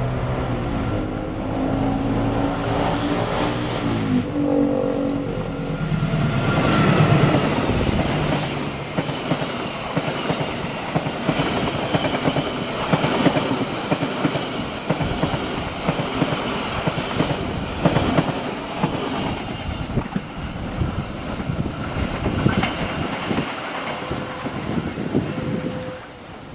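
A train horn sounds for the first few seconds and slides down in pitch as it ends. Then the train runs past close by, a rushing rumble with the wheels clacking rapidly over the rail joints. The sound drops off sharply at the very end.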